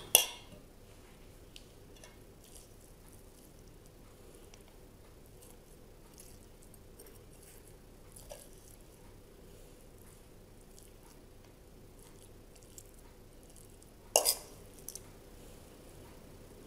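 A spoon pushes a moist minced-meat and parsley stuffing into hollowed green peppers, with soft squishing and small faint ticks. Two sharp metal clinks of the spoon against the stainless-steel bowl stand out, one right at the start and one near the end.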